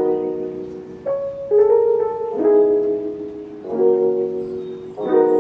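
Background piano music: gentle chords struck about once a second and left to ring out.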